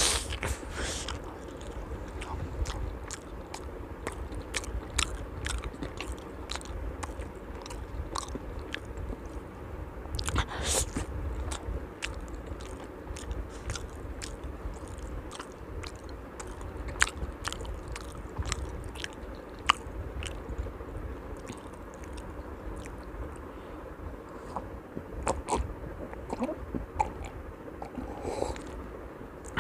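Close-miked chewing of a laddu, with many short wet mouth clicks and smacks. Near the end, sipping and swallowing lassi from a glass.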